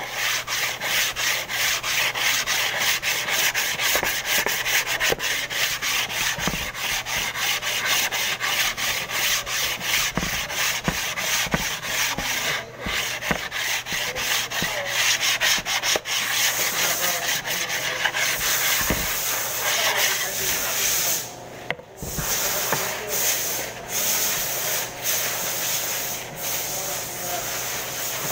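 Hand sanding along the edge of a wooden cabinet board, a block rubbed back and forth in quick, even strokes, several a second. The strokes stop for a moment about three-quarters of the way through, then go on.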